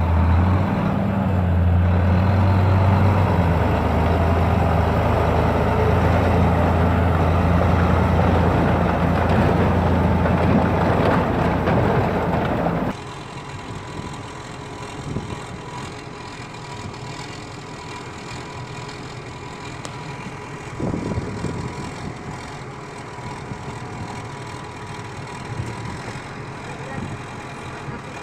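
Heavy vehicle engine running steadily and loudly for about thirteen seconds. Then a sudden change to a quieter engine idling, with a faint steady whine and a few light knocks.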